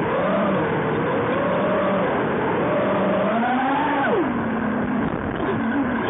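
QAV250 racing quadcopter's brushless motors and propellers whining, the pitch rising and falling as the throttle changes. About four seconds in the pitch drops sharply to a lower steady hum as the throttle is cut back.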